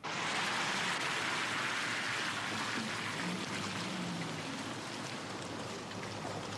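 Steady rain falling, starting abruptly and easing a little toward the end.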